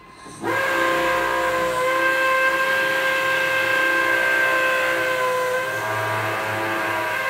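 Background electronic music with the beat dropped out: after a brief gap, a steady held synth chord comes in about half a second in, over a soft hiss.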